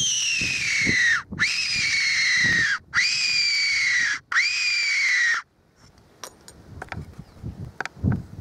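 Best Fox Whistle SS Tenterfield fox whistle blown in four long, squealing calls, each jumping sharply up in pitch and then sliding slowly down, used to lure a red fox in. The calls stop about five and a half seconds in.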